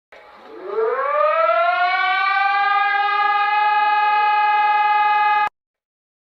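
Emergency alert siren winding up from a low pitch to a steady high tone over about a second and a half, holding, then cutting off abruptly near the end.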